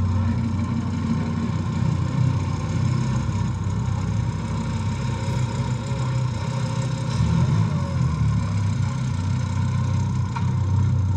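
A car engine idling steadily with a low hum, heard through a hall's loudspeakers.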